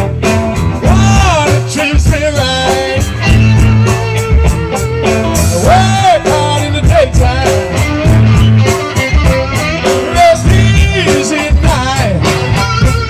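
Blues band playing: electric guitar with notes that bend up and back down, over bass and a steady drum beat, with some singing.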